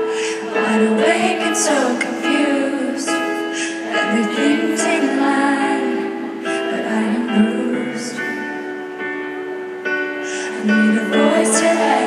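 Live pop ballad: a woman singing over held chords, recorded from the crowd in an arena.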